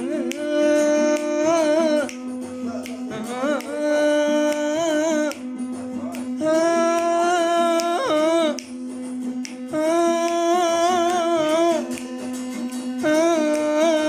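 Music: a melodic line in repeated phrases of about two seconds over a steady held drone, with light clicking percussion.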